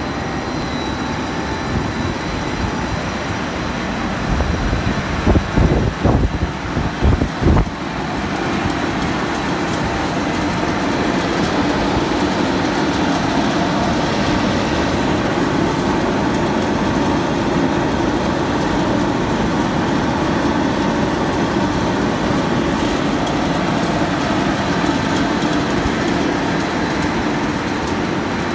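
Snack pellet extrusion line machinery running with a steady, loud mechanical noise. A run of heavy low thumps comes about four to eight seconds in.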